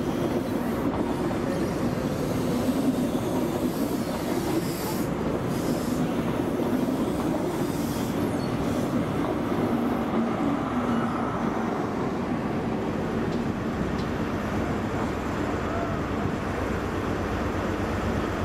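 LNER InterCity 125 high-speed train rolling past along the platform: a steady rumble of coaches and wheels, then the rear Class 43 power car's diesel engine running as it goes by, with a few clicks from the wheels.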